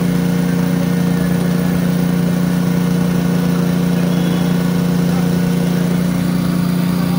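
A small engine running steadily at a constant speed, a loud unbroken hum with one strong low tone.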